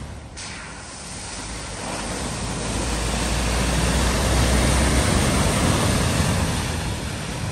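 A car driving through floodwater: a low engine rumble under a rush of water spray that builds over a few seconds, then fades.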